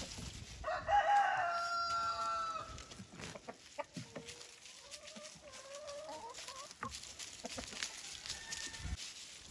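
French Black Copper Marans rooster crowing once, a long held crow starting about a second in and lasting about two seconds. A few seconds later a softer, wavering chicken call follows.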